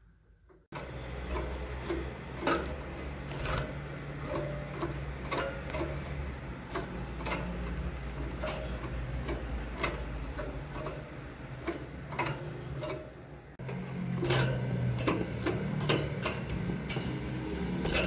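Irregular light clicks and taps, one or two a second, of a canary hopping and landing on a plastic perch and the wire bars of its cage, over a steady low hum.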